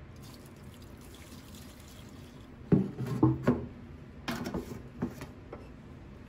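Paint thinner (naphtha) poured from a metal can into a plastic tub: a light trickling, splashing stream for the first couple of seconds. Then comes a run of loud clunks and knocks from the metal can, with a few more a second or so later.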